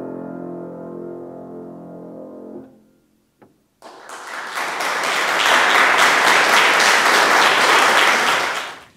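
The last chord of a grand piano held and dying away. After a short pause, an audience applauds for about five seconds, then the clapping stops.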